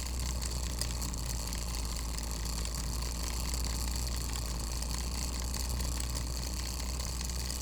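Spring-driven clockwork gear train running freely close to the microphone: a quiet, steady whirr of meshing gears rather than a tick-tock.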